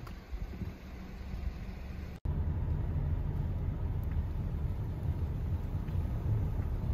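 About two seconds of light wind on the microphone, then an abrupt cut to the steady low rumble of a car driving slowly, heard from inside the cabin.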